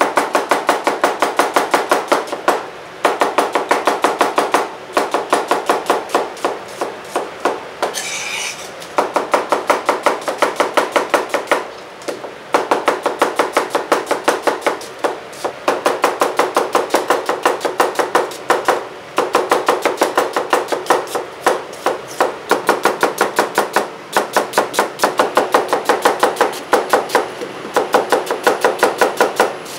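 Kitchen knife chopping onions fast on a wooden cutting board: quick, even strokes in runs of several seconds, broken by short pauses.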